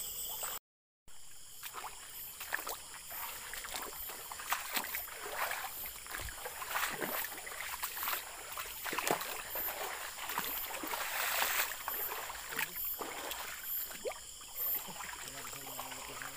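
Irregular splashing and sloshing steps through shallow water, over a steady high chorus of insects. The sound cuts out completely for about half a second near the start.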